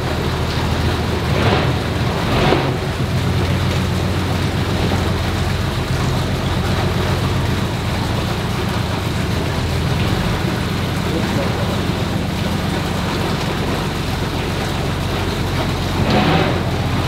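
Trawler's inboard diesel engine idling steadily under a constant hiss.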